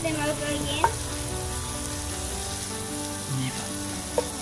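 Prawns frying in butter in a frying pan: a steady sizzle, with a sharp knock of the wooden spoon against the pan about a second in and another near the end as the prawns are turned.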